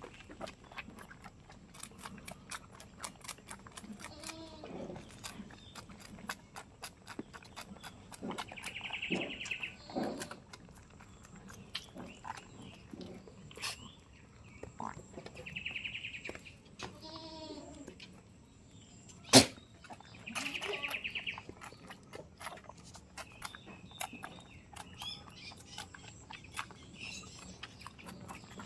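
Goats bleating now and then, short quavering bleats several times. Many small clicks and knocks run throughout, with one sharp knock about two-thirds of the way through, the loudest sound. A higher-pitched call repeats three times.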